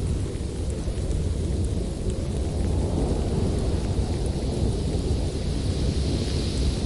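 Winter storm ambience: a steady deep rumble under a hiss, swelling a little about three seconds in and again near the end.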